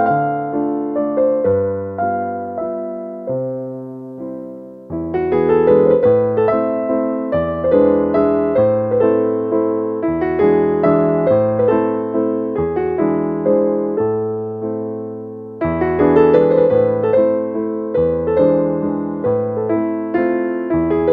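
Background music: a piano playing a gentle tune over a steady bass line, thinning briefly and then fuller from about five seconds in.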